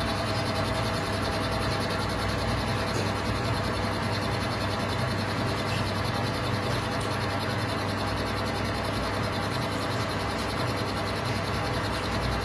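Metal lathe running at high spindle speed while facing a workpiece: a steady machine hum with a constant tone over it and no change in speed.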